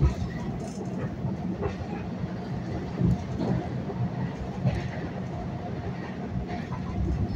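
Long Island Rail Road electric commuter train running at speed, heard from inside the car: a steady rumble of wheels on the track with a few sharp knocks and a faint steady tone.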